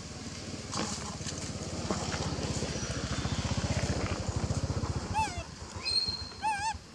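A low, pulsing motor-like rumble swells over the first five seconds and then fades. Near the end come three or four short, warbling high-pitched animal calls.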